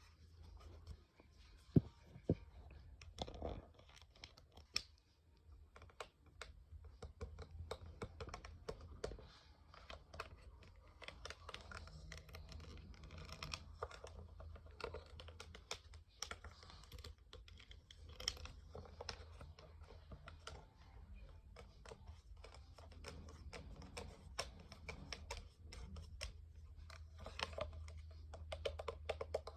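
Rapid, irregular light tapping and clicking, many small sharp clicks a second, over a steady low hum.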